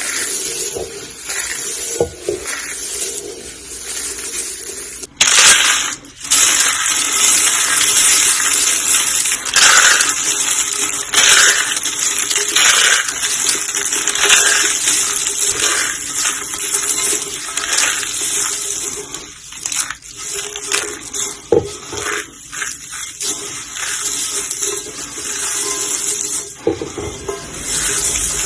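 Pink soap roses and soap curls being crushed, a continuous crunching and crackling with many small snaps, much louder from about five seconds in.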